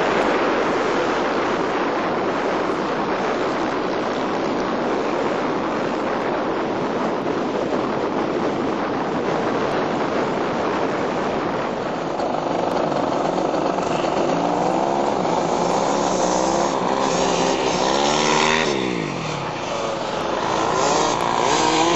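Off-road motorcycle engines running and revving under a steady rushing noise. From about halfway the engine notes come through clearly, rising and falling with the throttle, and near the end one bike passes with a falling pitch.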